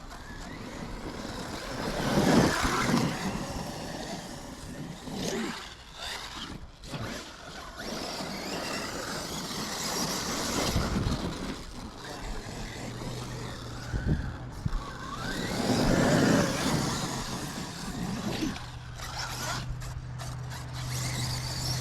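Electric RC basher cars driving over dirt and sand, motors surging and easing off with tyres scrabbling, loudest about two seconds in and again about sixteen seconds in. A steady low hum joins from about thirteen seconds on.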